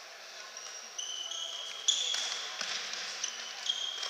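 Athletic shoes squeaking on a hardwood sports-hall floor as players run and turn, many short high squeaks overlapping, with sharp knocks about one and two seconds in.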